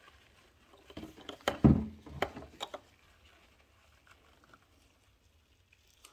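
Metal hose clamp being worked back onto a rubber coolant hose: a short run of clicks and knocks between about one and three seconds in, the loudest a dull knock near the middle, followed by a few faint ticks.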